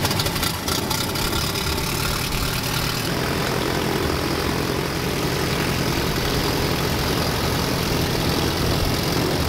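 Piston engine of a small Sonex kit airplane idling steadily with the propeller turning, just after start-up; the sound changes character about three seconds in.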